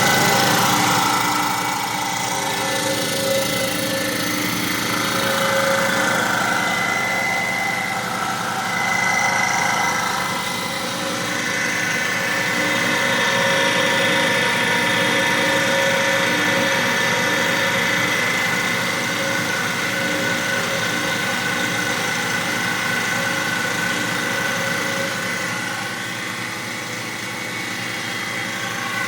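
Schulz Pro CSV 10 piston air compressor running steadily, its motor and pump giving a continuous hum with a fast even pulse.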